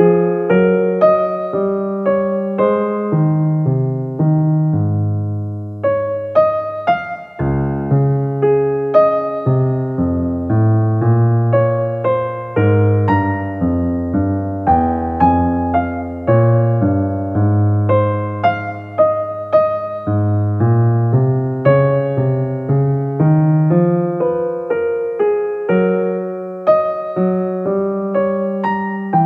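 Background piano music: a continuous run of single struck notes and chords, each fading after it is played.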